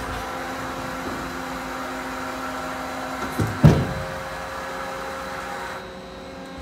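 Ikegai TU-30LL CNC lathe powered up and humming steadily, a mix of held tones from its running motors and pumps. Two clunks sound about three and a half seconds in, and one of the lower tones in the hum stops with them.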